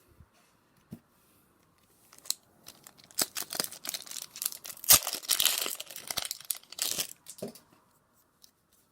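A Flesh and Blood booster pack wrapper torn open and crinkled in the hands, with a few scattered clicks at first and the loudest tearing and crinkling from about three to seven seconds in.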